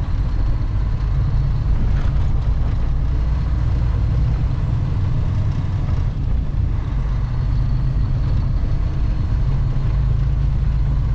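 Steady low rumble of a semi truck's diesel engine and tyres, heard from inside the cab while driving at a constant speed.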